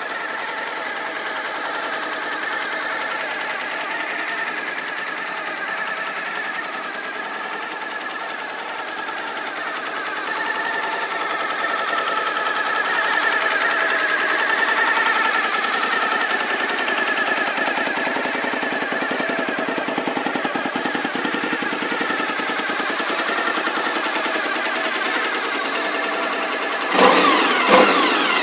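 Suzuki TL1000S 90-degree V-twin idling steadily, its idle rising slightly about a third of the way in. Near the end the throttle is blipped, with a few sharp revs rising and falling back.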